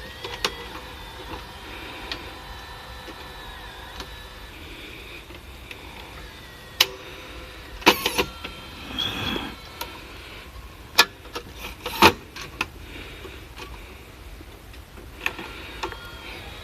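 Small motor in a portable video cassette recorder's tape mechanism whirring steadily. Sharp mechanical clicks and clunks come at irregular moments, bunched around the middle, with a short rustle about nine seconds in.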